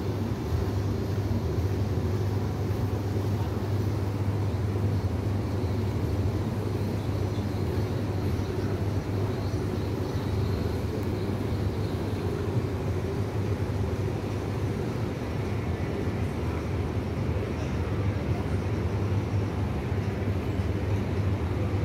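Steady low engine drone of a dinner-cruise boat's motor running, holding an even pitch and level.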